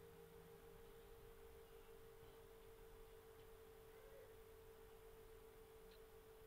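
Near silence: room tone with one faint, steady, unchanging hum-like tone.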